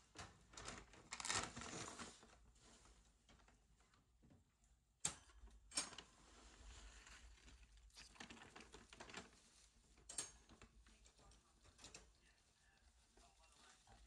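Faint, irregular rustling and crackling of hay as a rabbit moves about in its wire cage, with two sharp clicks about five and six seconds in.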